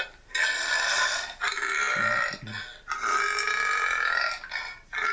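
A man burping: about three long, drawn-out belches in a row, each lasting one to two seconds, with short breaks between them.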